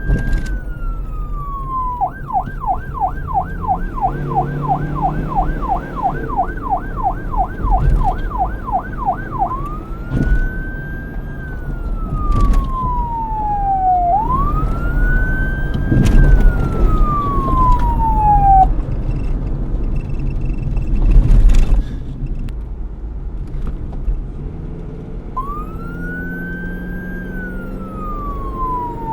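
Police car electronic siren switching between a slow wail, each sweep rising quickly and falling over a few seconds, and a fast yelp of about three sweeps a second. The siren breaks off for several seconds after the middle, leaving a low traffic rumble and one sharp loud thump, then the wail starts again.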